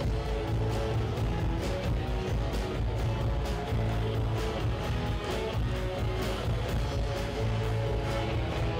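Live rock band playing: electric and acoustic guitars over a drum kit, with a steady beat and a strong low end.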